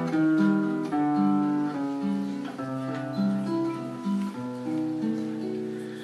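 Acoustic guitar playing an introduction: single picked notes and chords ringing one after another, dying away near the end.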